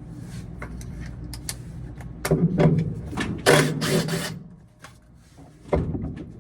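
A power driver runs in two short bursts, backing out fasteners on a top-load washer's drive and stator assembly, with scattered clicks and clatter of tools and metal parts.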